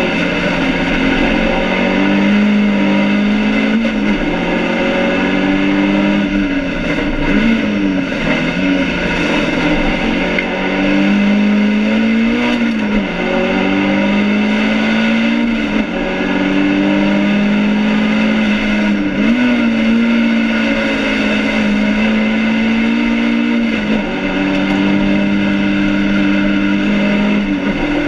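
BMW 2002 race car's four-cylinder engine at racing speed, heard from inside the stripped cabin. Its pitch climbs under throttle and drops back at gearshifts and corners about every four seconds.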